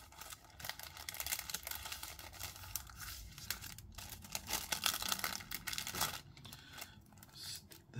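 Clear plastic kit bag crinkling and rustling as it is handled and opened and the decal sheets are pulled out of it, in irregular fits with short pauses.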